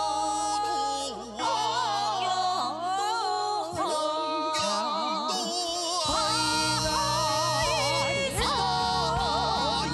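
A man and two women singing together in a Korean fusion gugak song, several voices at once with wide vibrato, over keyboard accompaniment. A fuller low accompaniment comes in about six seconds in.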